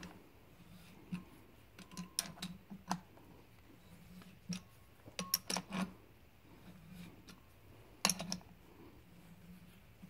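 Irregular metallic clicks and small knocks of an adjustable wrench turning a thread tap, cutting threads in drilled oil-galley holes in a GM 5.3 V8 block so they can be plugged with set screws. The clicks bunch up a little past halfway, with a sharp one about eight seconds in.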